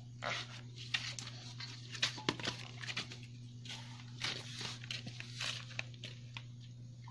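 Irregular rustling, scraping and clicking from fish and containers being handled, over a steady low hum.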